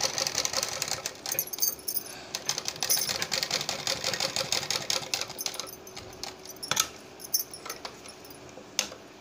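Sewing machine stitching a suit's neckline along the embroidered edge. It runs fast at first, then in shorter spurts, and stops about six seconds in. Two sharp clicks come near the end.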